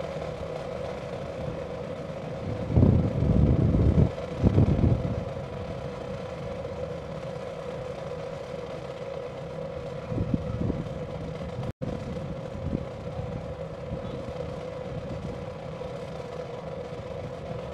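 Stadium crowd ambience with a steady hum as the stands wait for the national anthem, broken by two loud low rumbles about three and four and a half seconds in.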